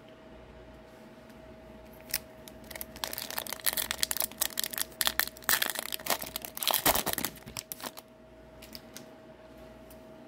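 Foil wrapper of an Upper Deck hockey card pack crinkling and tearing open by hand, a burst of crackling that runs from about two seconds in to about eight seconds in.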